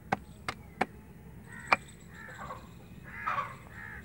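Crows cawing a few times in the second half, after several sharp taps in the first two seconds, the loudest of them near the middle.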